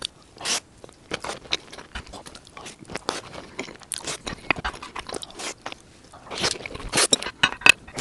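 Close-miked eating sounds: mouthfuls of bibimbap being bitten and chewed, with irregular wet clicks and crunches, growing louder and busier near the end.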